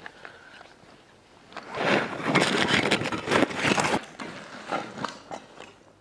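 Scraping and rustling of clothes and shoes against granite and grit as a person slides down to sit between boulders. It is loudest for about two seconds in the middle, followed by a few light knocks.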